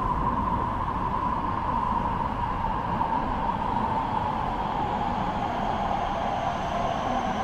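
A train approaching inside a railway tunnel, heard from the platform at the tunnel mouth: an eerie whine that slowly falls in pitch over a steady rumble.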